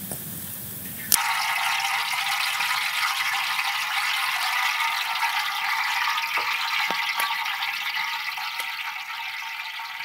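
Hot cooking oil sizzling steadily in a large metal wok, starting abruptly about a second in, with a few sharp pops.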